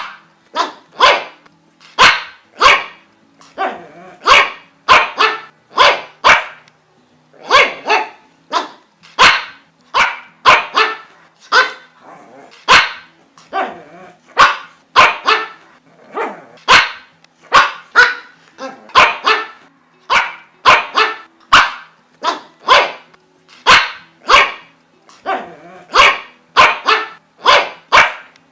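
A pug barking over and over: short, sharp barks about one to two a second, in runs broken by brief pauses.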